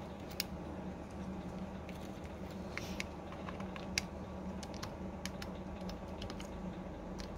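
Irregular small clicks and taps as a Samsung Galaxy S20 motherboard is lowered into its frame and pressed into place with fingers, one sharper click about four seconds in. A faint steady hum lies underneath.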